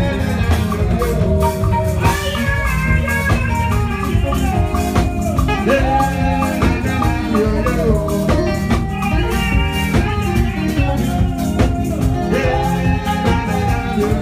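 Live church band playing upbeat praise music: a Roland synthesizer keyboard played over a drum kit, with a steady dance beat.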